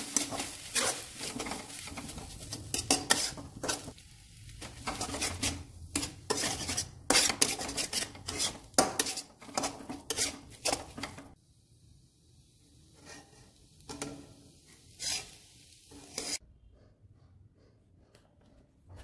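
Spatula scraping and clanking against a steel wok as chow mein noodles are stir-fried, over a light frying sizzle. The strokes come thick and fast at first, thin out after about eleven seconds, and stop a few seconds before the end.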